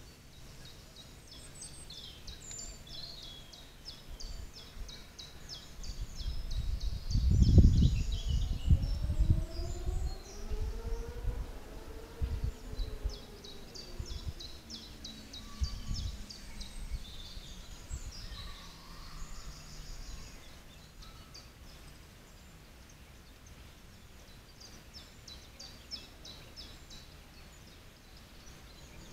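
Outdoor pond ambience: high, rapid chirping trills that come in runs every few seconds, with a cluster of low rumbling thumps about seven to ten seconds in, the loudest part, and a faint pitched hum that rises and then falls between about six and twenty seconds in.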